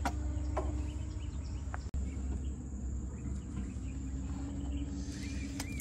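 Outdoor river-bank ambience: a steady high insect drone over a low rumble, with a few faint chirps near the end.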